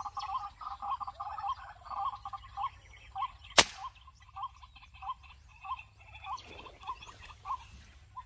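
A single sharp air rifle shot about three and a half seconds in. Behind it runs a series of short, rapidly repeated animal calls, a few a second, that slow down after the shot.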